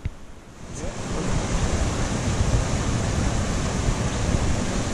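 Steady rush of a shallow river pouring over boulders, coming in suddenly about a second in and staying loud and even.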